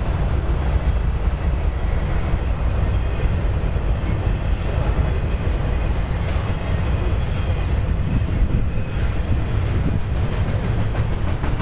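Auto rack freight cars rolling past on steel rails: a steady rumble of wheels on track, with a quick run of clicks from the wheels over rail joints near the end.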